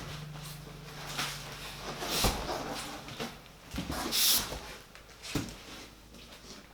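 Hands handling PC case parts and packaging: scattered knocks and clicks, with a short rustle of plastic or packing material about four seconds in.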